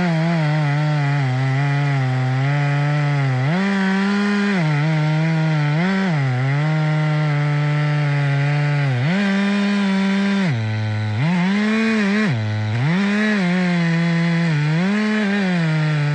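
Two-stroke chainsaw running at full throttle, cutting into a tree trunk to finish the face cut. Its engine pitch sags under load and picks back up several times as the chain bites into the wood and eases off.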